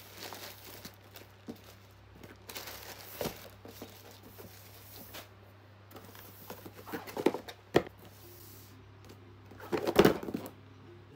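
Parcels being handled on a desk: plastic mailer bags rustling and crinkling, and a cardboard box knocked and set down several times, loudest about ten seconds in.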